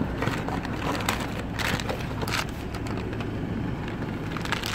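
Foil wrapping and cardboard injector boxes rustling and crinkling as they are handled, with two louder crinkles about a second and a half and two and a half seconds in, over a steady low hum.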